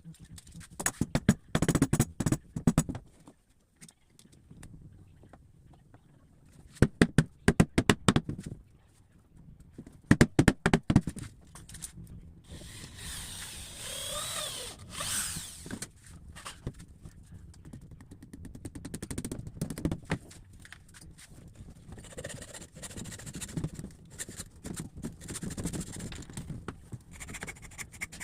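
Woodworking tools on wood: three bursts of rapid sharp knocks in the first eleven seconds, then a longer stretch of scraping with a brief squeak in the middle.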